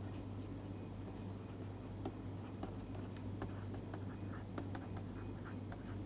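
Faint light taps and scratches of a stylus writing on a tablet screen, over a steady low electrical hum.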